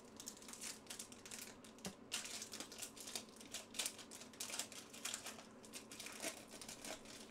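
Foil wrapper of a football trading-card pack crinkling and crackling as it is torn open and handled.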